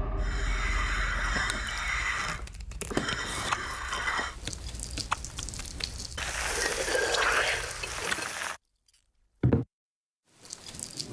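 Hand-turned stone mill grinding batter: a wet, gritty grinding noise with scattered clicks. It cuts off suddenly about two-thirds of the way through, leaving near silence broken by one short thud.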